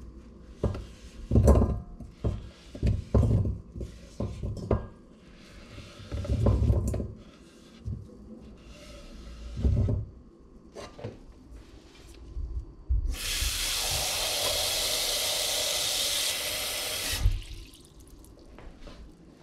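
Diced raw potato cubes scraped off a wooden cutting board and dropping into a stainless steel pot, a run of knocks and thumps. About thirteen seconds in, a kitchen tap runs into the pot for about four seconds, filling it with water, and cuts off.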